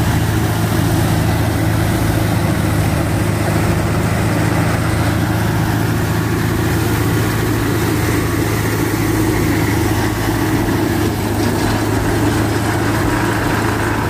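John Deere 5050D tractor's three-cylinder diesel engine running steadily while driving a PTO-powered straw reaper, the engine drone mixed with the reaper's even machine noise.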